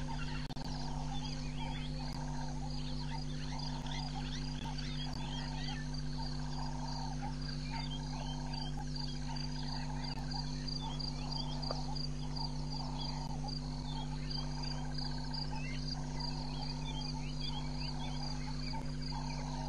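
Frogs calling in a steady rhythmic chorus, a pulse about four times every three seconds, with insects trilling continuously and birds chirping now and then over a faint steady low hum.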